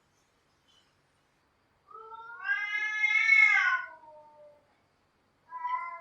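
Domestic cat yowling: about two seconds in, one long call that rises then falls in pitch, and near the end the start of another call that slides downward.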